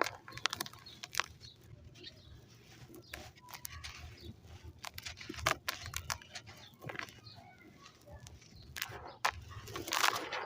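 Dry white sand clumps crumbling: scattered gritty crackles and clicks, with a louder crunching burst near the end.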